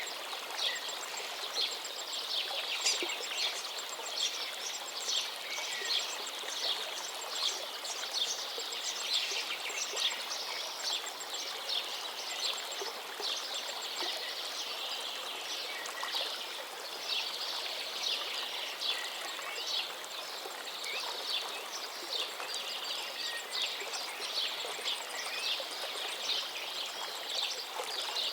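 Steady rushing of the Duduma waterfall, with many birds chirping in quick, short calls over the water noise.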